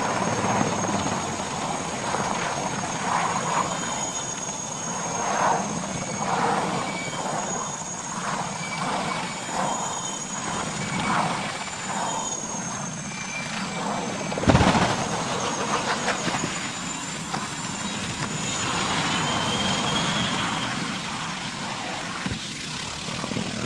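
Helicopter running, a steady rotor-and-engine noise with a thin high whine. There is a sudden loud thump about two-thirds of the way through.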